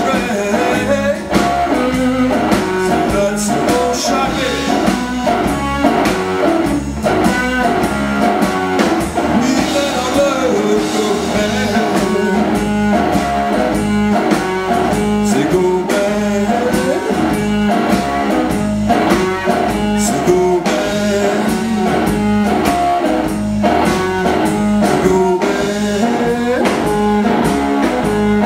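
Live blues-rock band playing: electric guitar over electric bass and drum kit, with some singing.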